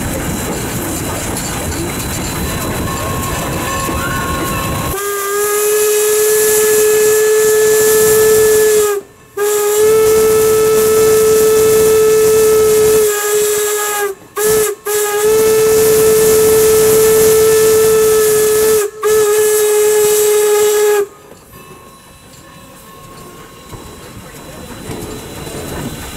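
Steam whistle of Norfolk & Western No. 475, a 4-8-0 steam locomotive, blowing loud blasts of one steady pitch: two long blasts, a brief toot, then a long drawn-out blast. This is the long-long-short-long pattern of a grade-crossing signal. The rolling train's steady running noise is heard before the whistle starts about five seconds in and after it stops near the end.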